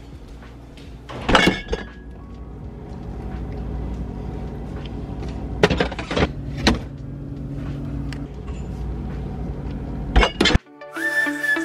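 A few knocks and clinks as a glass baking dish is handled at an open refrigerator and the fridge door is shut, over a steady low hum. Music starts suddenly about a second before the end.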